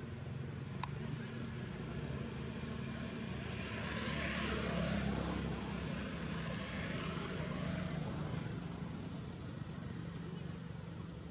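Distant engine drone, likely a passing vehicle or aircraft, swelling to its loudest about five seconds in and then slowly fading.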